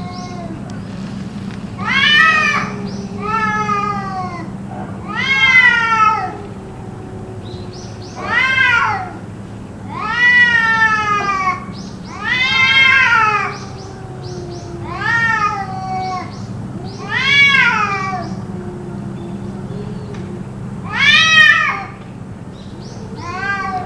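Cats yowling: about ten loud, drawn-out meows that rise and fall in pitch, one every two seconds or so, over a lower, wavering drawn-out moan. It is the kind of caterwauling the uploader wonders is a cat fight.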